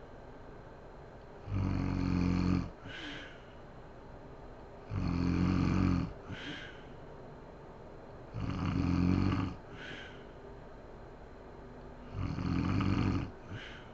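A sleeping woman snoring loudly and regularly: four deep snores about three and a half seconds apart, each followed by a short, breathy puff of air.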